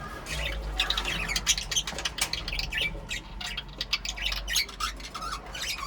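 Budgerigars chirping and squawking in a rapid, busy run of short, sharp calls.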